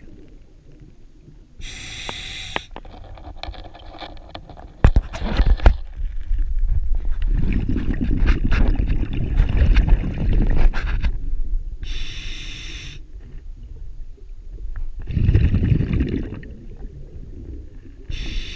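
Scuba diver breathing through a regulator underwater: short hissing breaths in, and longer rumbling bursts of exhaled bubbles. A few sharp knocks of gear handling come about five seconds in.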